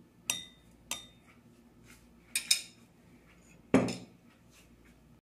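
A metal spoon clinking twice against a drinking glass, with a short ringing tone, as custard is spooned in. A couple of softer scraping taps follow, then a heavier knock near the end.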